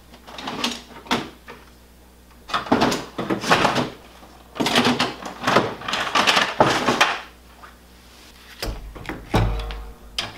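Rummaging through items on a garage storage shelf: clattering and scraping in several bursts, then a few low thumps near the end.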